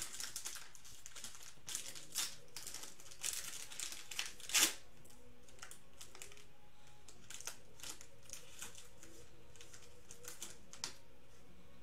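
Foil trading-card pack wrapper crinkling and tearing as it is opened by hand. There is a quick run of crackles in the first few seconds, the loudest about four and a half seconds in, then only occasional faint crinkles.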